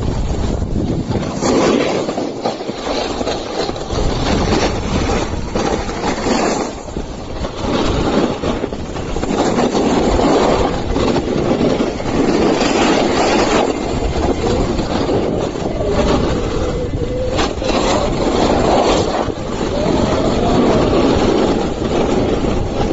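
Loud, continuous grinding rumble of a shovel sliding fast down a packed-snow slope, swelling and easing as it goes.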